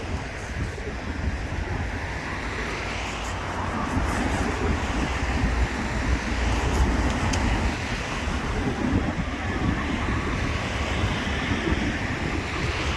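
A large flock of pigeons with wings whirring and flapping together, a dense rushing flutter that swells about four seconds in.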